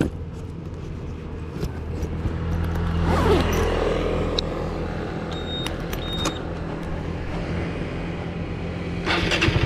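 A steady low engine hum runs through, rising and falling once as something passes about three seconds in. Near the end a Honda Winner 150's single-cylinder engine is started and catches on the first press of the starter, settling into an evenly pulsing idle.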